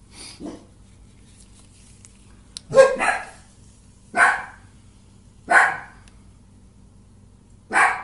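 A dog barking: five sharp barks, the first two close together about three seconds in, then single barks a second or two apart.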